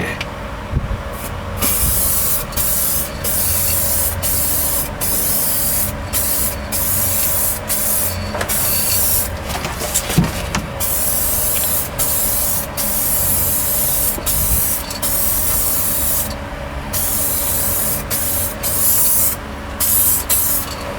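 Aerosol spray-paint can hissing in a long run of bursts with brief breaks, from a nozzle called kind of funky.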